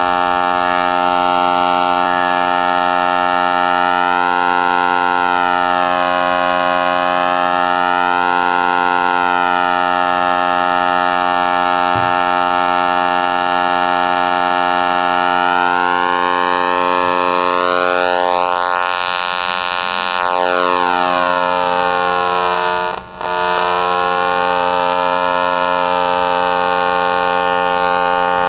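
Steady electrical buzz from a PWM circuit, a low tone at the pulse rate with many overtones. Its tone colour shifts slowly as the duty cycle changes, and the sound dips briefly about 23 seconds in.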